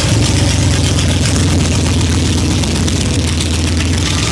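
Classic car engines idling as they roll slowly past at cruising pace, a low, steady engine sound led by a hot rod with an exposed engine close by.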